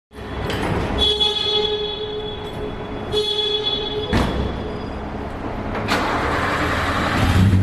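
Vehicle horn sounding in two long steady blasts over street traffic noise, followed by two sharp knocks.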